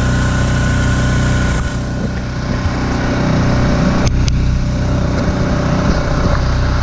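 Propane-fuelled Mercury 5 HP four-stroke outboard running steadily, pushing an inflatable boat along. There is a brief dip in its sound about two seconds in and a sharp click about four seconds in.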